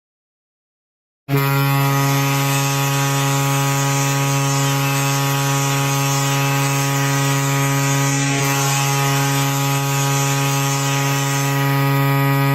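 NHL arena goal horn: one long, steady, low blast of a ship-style air horn that starts suddenly about a second in and holds a single unchanging note.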